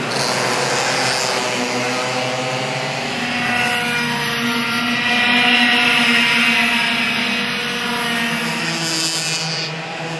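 Several racing karts' two-stroke engines running at high revs as a pack passes, several engine notes overlapping, loudest about halfway through.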